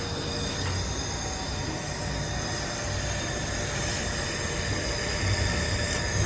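IPG LightWELD XR handheld fiber laser welder welding thin aluminum with filler wire fed in: a steady hiss with high-pitched whining tones over it.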